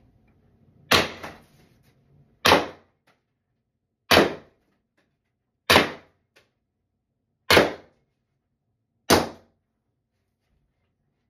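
Less-lethal CO2 launcher firing six single shots, each a sharp pop with a short tail, about one and a half seconds apart.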